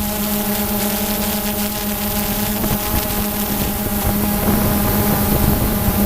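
Quadcopter motors and propellers humming steadily at one pitch, with wind noise on the microphone.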